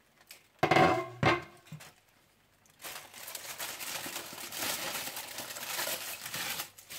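A pot of rice being uncovered after steaming on low heat (dum): two loud knocks about half a second apart near the start, then about four seconds of steady rustling noise.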